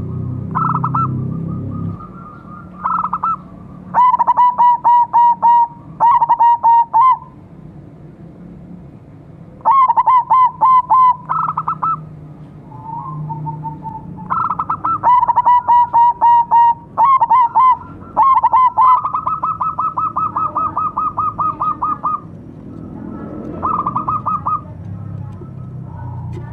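Zebra doves (perkutut) cooing, a caged silver bird with another zebra dove joining in: repeated phrases of quick rolling notes, with one long, even trill lasting about three seconds past the middle.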